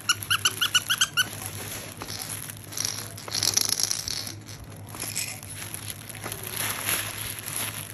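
A quick run of about eight short, high squeaks in the first second or so, then the crinkling rustle of a soft fabric crinkle book as a baby's hands squeeze and turn its pages.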